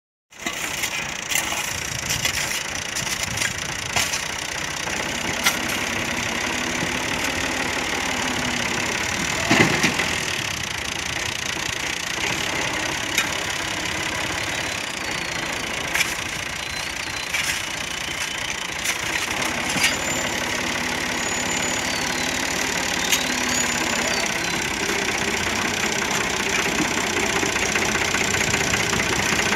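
New Holland (Fiat) 480 tractor's three-cylinder diesel engine running steadily, with a scattering of sharp clinks from shovels digging sand and stones around the wheels. Near the end the engine grows louder as it pulls under load and the front wheels lift off the sand.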